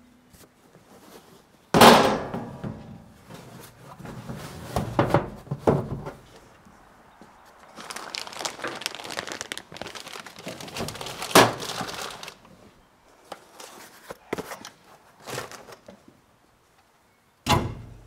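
Things being stowed in a wall cabinet. There is a loud thunk about two seconds in, then crinkling of a plastic bag with scattered knocks against the shelves. Near the end the cabinet doors shut with two sharp knocks.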